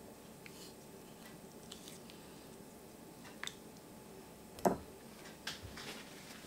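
Soft wet squishing and small ticks as the skin is peeled by hand off a blanched tomato in a steel bowl of water. A sharper knock comes about four and a half seconds in, followed by a couple of softer taps.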